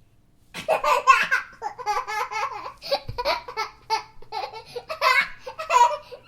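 Small boy laughing hard while being tickled: a long run of breathless, bubbling laughs that starts about half a second in and barely pauses for breath.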